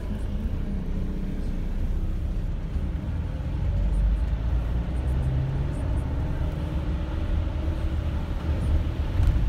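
A vehicle's engine running with a steady low rumble, heard from inside the cab while driving along a flooded road.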